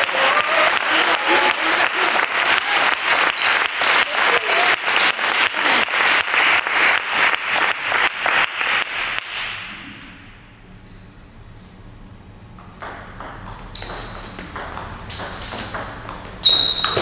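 Steady rhythmic clapping at about four claps a second, dying away just over halfway through; then a table tennis rally, the celluloid ball clicking off bats and table with high pings.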